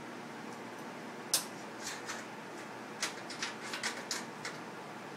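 Short, sharp clicks and light taps of hands and tools working steel parts on a steel welding table: a single louder click about a second and a half in, then a quick cluster of ticks between about three and four and a half seconds in, over a steady low hiss.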